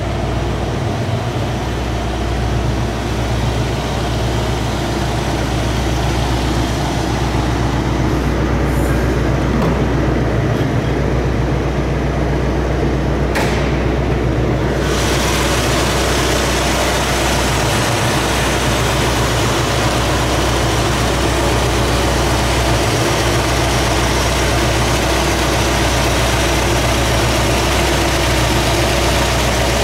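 1966 Ford Mustang GT's 289 cubic-inch A-code four-barrel V8 idling steadily. There is a single click about halfway through, and soon after it a brighter hiss joins the engine sound.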